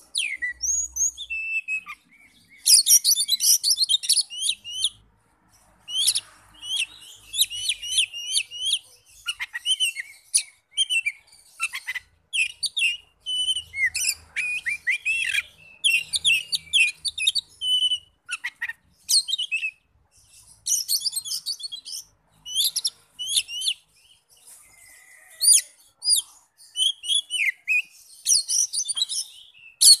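Oriental magpie-robin (kacer) singing: rapid, varied high whistles and chirps in phrases of a second or two, broken by short pauses.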